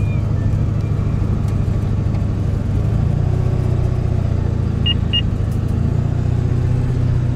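A pickup truck driving at steady speed, heard from inside the cab: a steady low engine and road hum. Two short high beeps come about five seconds in.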